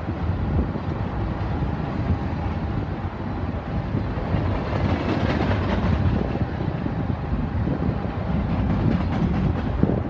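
Manifest freight train rolling past with a steady rumble of wheels on rail. A run of sharper clacks comes about halfway through.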